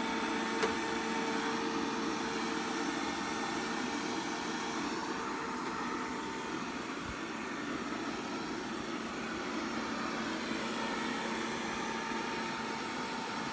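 Robit V7S Pro robot vacuum running while cleaning, a steady whirring hum with one short click near the start.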